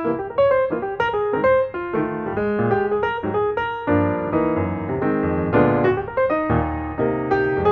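Background piano music: a melody of quick notes over changing chords.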